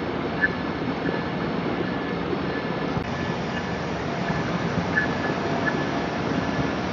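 Long Island Rail Road train running through the station: a steady rumble with brief high-pitched squeaks recurring every second or so.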